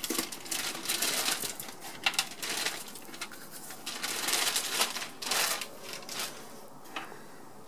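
Clear plastic bag crinkling and rustling in irregular bursts as it is pulled off a bench oscilloscope.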